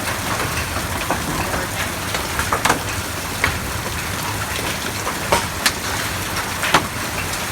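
Large hail falling in a steady hiss, with a sharp crack every so often as a single big hailstone strikes.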